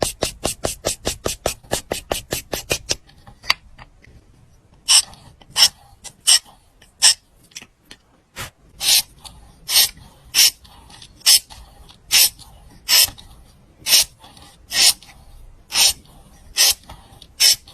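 Repeated rasping scrape strokes: a quick run of about seven a second for the first three seconds, then single strokes roughly every three-quarters of a second.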